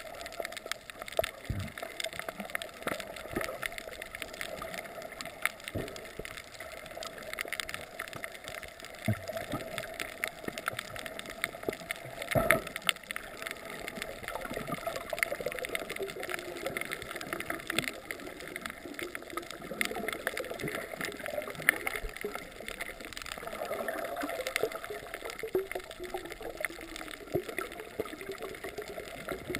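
Underwater sound heard through an action camera's waterproof housing: a steady muffled water hiss with many scattered clicks and crackles and some gurgling, and one louder knock about twelve seconds in.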